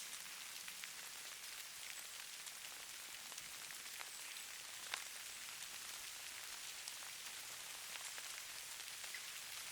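Steady soft hiss of falling snow, with many fine ticks of flakes landing. One tick about five seconds in is a little louder.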